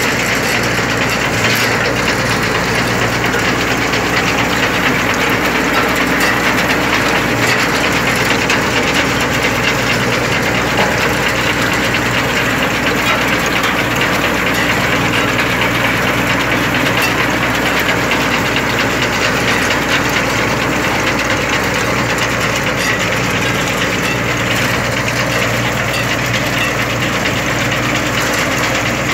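Diesel engine of a Massey Ferguson 6028 28 hp mini tractor running steadily while pulling a multi-crop harvester through the field.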